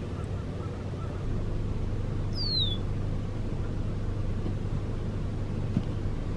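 A red-winged blackbird gives one short downslurred whistle about two and a half seconds in, over a steady low hum.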